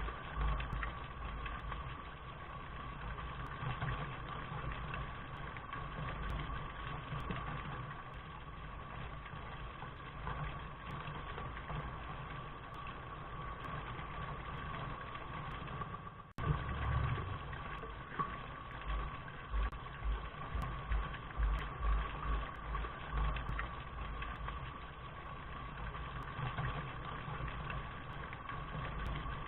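Steady rain hiss with an uneven low rumble underneath. The sound drops out for an instant about sixteen seconds in, then carries on unchanged.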